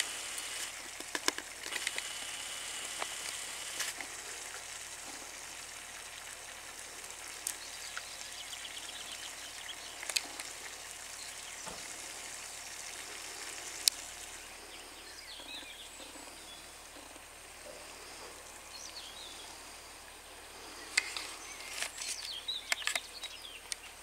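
Food sizzling in a frying pan on a portable gas stove, a steady hiss with occasional sharp crackles, easing a little about halfway through.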